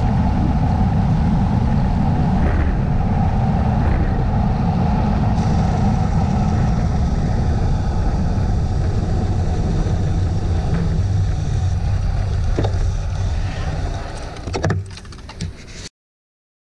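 Wind buffeting the microphone of a GoPro on a road bike descending at speed: a steady, loud low rumble. It eases off about 14 seconds in, with a few knocks, before the sound cuts off.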